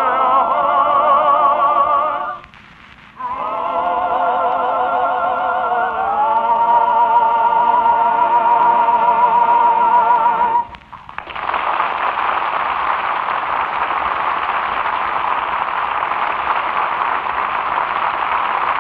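Operetta singing with strong vibrato, with a short break about two seconds in and a long held final note that stops about eleven seconds in, followed by steady studio-audience applause.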